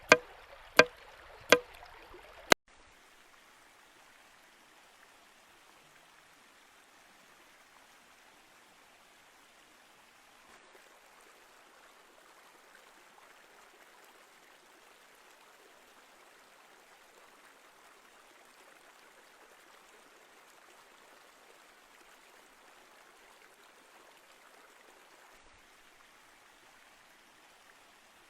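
Three or four sharp, loud knocks about a second apart, then an abrupt cut to the faint, steady flow of a river for the rest of the time.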